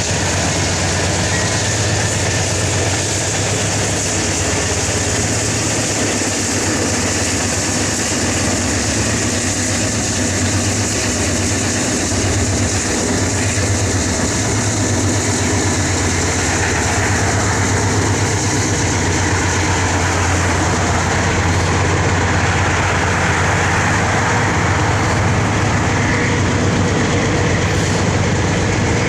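Freight train pulled by three Norfolk Southern GE C44-9W diesel-electric locomotives rolling past: a steady, loud diesel rumble mixed with wheel-on-rail noise, without a let-up.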